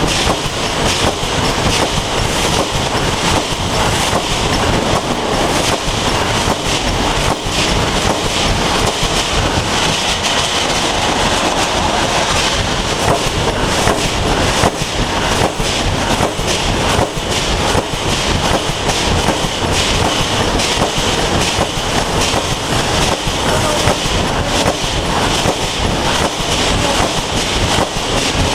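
Wire mesh welding machine running, with a steady, rapid mechanical clatter that carries on throughout.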